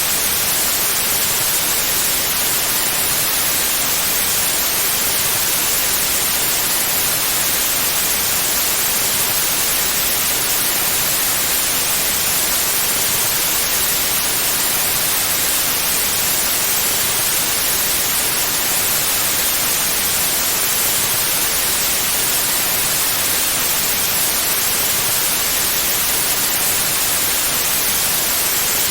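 Synthetic white noise: a steady, even hiss, brightest in the high frequencies, with no change in level.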